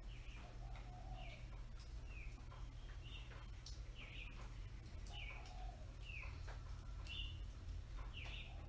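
Early-morning birdsong from several birds: short, high chirps about once a second, with lower warbled notes between them, over a steady low hum.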